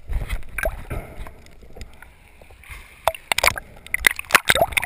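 Water sloshing and gurgling around a GoPro camera held at the surface while snorkelling, with bubbly pops and splashes. A low rumble of moving water in the first second gives way to a quieter moment, then a busy run of sharp splashes from about three seconds in.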